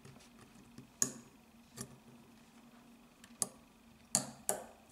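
Small metal parts of a Smith & Wesson 22 Victory pistol's trigger group, the trigger bar and magazine disconnector, clicking and tapping against the frame as they are pressed into place by hand. About five sharp clicks, the last two close together near the end.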